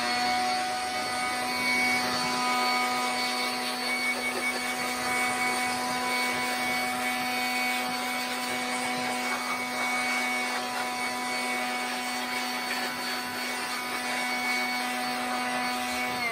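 Handheld Bosch electric blower running at a steady high speed, a constant motor whine with rushing air, blowing caked dirt out of a lawn mower's motor housing.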